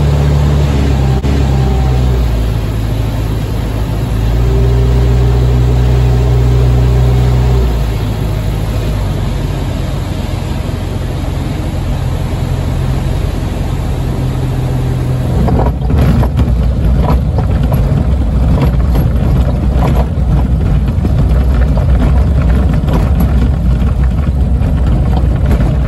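Jabiru J160 light aircraft's four-cylinder Jabiru 2200 engine running at low power as the plane rolls on the ground, heard from inside the cockpit. Its note steps up and down a few times in the first eight seconds, then runs steadily. From about two-thirds of the way through it gets louder, with repeated knocks and rattles.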